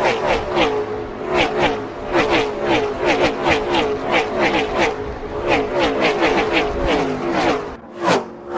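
A pack of Gen 6 NASCAR V8 stock cars passing at racing speed one after another, about two or three a second, each engine note dropping in pitch as the car goes by. The pack thins near the end to a couple of single cars.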